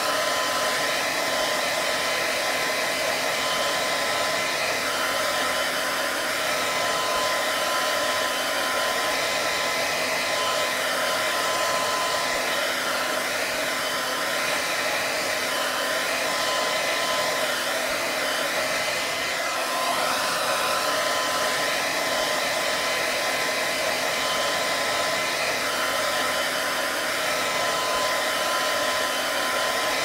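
Hair dryer running steadily: an even, unchanging rush of blown air with a thin steady whine over it.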